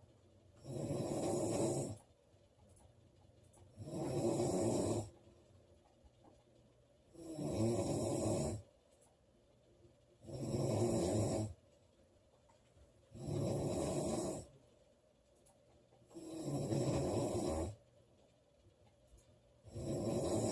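A woman snoring in her sleep: regular snores, one about every three seconds, each lasting about a second, with quiet breathing pauses between.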